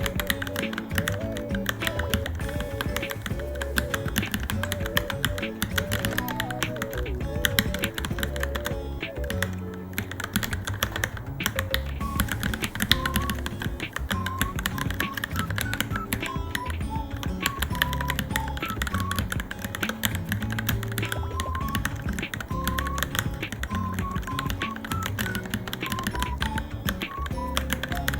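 Fast, continuous typing on a Varmilo Minilo mechanical keyboard, a dense run of key clicks, over background music with a melody.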